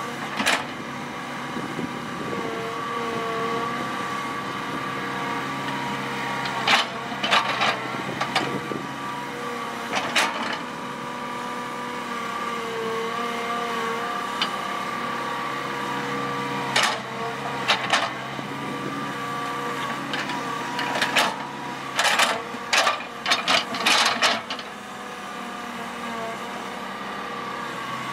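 Hitachi EX120 hydraulic excavator's diesel engine running under load while digging, a steady drone with a whine that wavers in pitch as the hydraulics work. Irregular sharp clanks break in, several in quick succession near the end.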